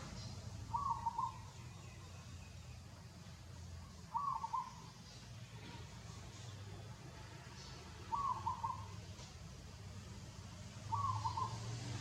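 A bird's short hooting call, repeated four times at roughly three- to four-second intervals, over a steady low background rumble.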